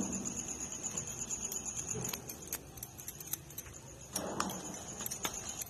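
Faint handling of a stuffed dough ball by hand: a few light clicks and a short soft rustle about four seconds in, over a steady faint high-pitched whine.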